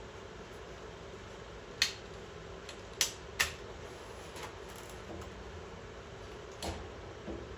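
Several sharp clicks and light taps of tools and metal parts being handled while a freeze dryer is reassembled, the loudest about two seconds in and two close together about three seconds in. A steady low hum runs underneath.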